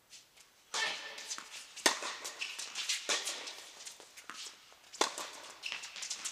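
Tennis doubles point in play: sharp racket-on-ball strikes about two seconds in and again about five seconds in, amid a busy patter of players' footsteps and shoe scuffs on the court.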